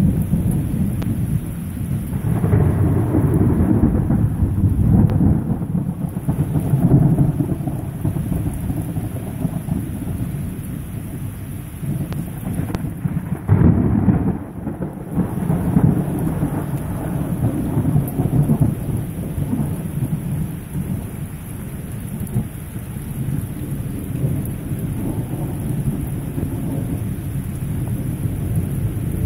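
Heavy rain pouring steadily with thunder rumbling through it, swelling a couple of seconds in and again in the second half, with a sudden louder clap about halfway through.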